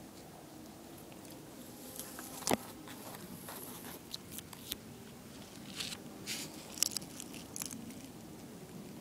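Faint scattered rustles and small clicks of a pet rat moving through a potted plant's grass and about a flower pot, with one sharper click about two and a half seconds in.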